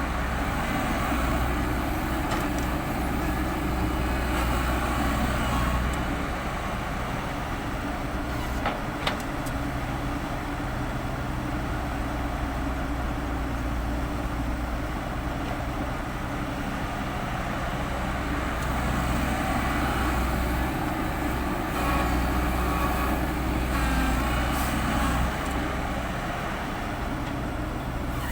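Heavy construction machine's diesel engine running steadily, swelling louder under load for a few seconds near the start and again about two-thirds through. A single sharp knock sounds about nine seconds in.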